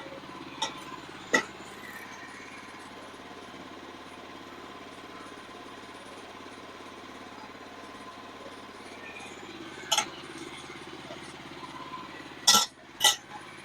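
A few sharp metallic clinks and knocks: two in the first second and a half, one about ten seconds in, and a louder pair near the end. A steady low hum runs beneath them.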